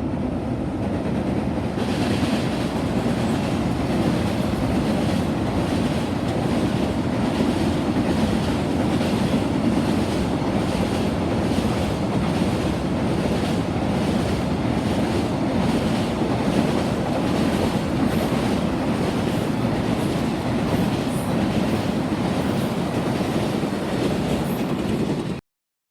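Freight train passing close by: a steady rumble with a long, even run of wheels clacking over the rail joints. It cuts off abruptly near the end.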